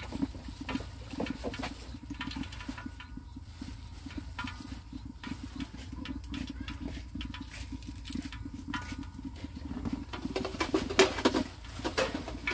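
Irregular light clicks and clinks of eating utensils and dishes, over a steady low background noise.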